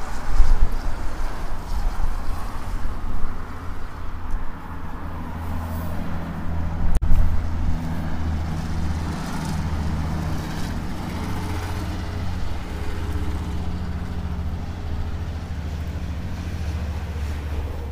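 Road traffic: vehicles passing, then a vehicle engine running with a steady low hum from about halfway through. There is a momentary dropout in the sound about seven seconds in.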